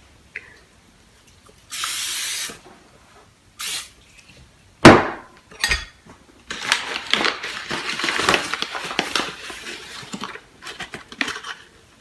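A metal cake pan being tapped and knocked about to spread flour over its greased surface. There is a short hiss about two seconds in, a sharp knock just before five seconds, then several seconds of fast, irregular rattling and tapping.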